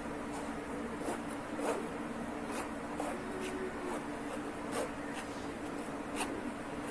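A metal spoon scraping and stirring flour through a mesh sieve, in short, irregular rasping strokes, over a steady low hum.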